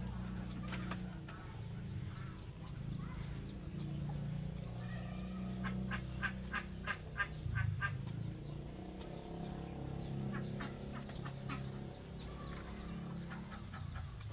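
Chickens clucking, with a quick run of short calls about halfway through, over a low steady hum.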